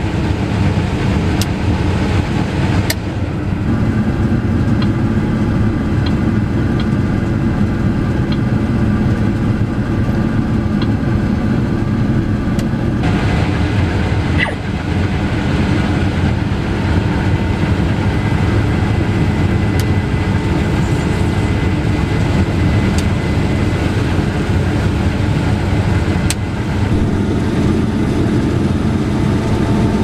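Steady drone of a Case IH combine heard from inside its cab while it harvests soybeans through a MacDon draper head. The engine and threshing machinery hum evenly, with a few sharp ticks scattered through.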